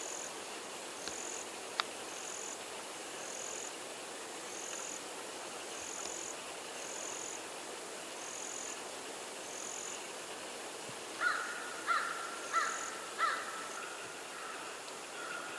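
Woodland insect giving a high chirp about once a second over a steady outdoor hiss. About eleven seconds in, an animal gives four loud calls in quick succession, about one every two-thirds of a second, then two fainter ones.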